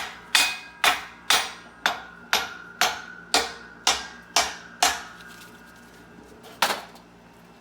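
Metal struck repeatedly with a hammer, evenly at about two blows a second, each with a faint metallic ring. About eleven blows run until roughly five seconds in, then a single last blow comes near the end.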